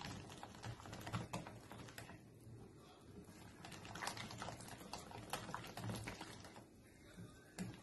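A metal utensil stirring thick crepe batter by hand in a glass bowl, with faint, irregular clicks and scrapes against the glass.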